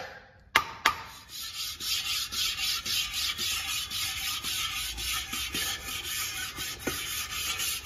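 A single knock about half a second in. Then 320-grit sandpaper wrapped on a steel box-tube block is rubbed over the deck face of an aluminium cylinder head in steady, rapid back-and-forth strokes, deburring the sealing surface before the head gasket goes on.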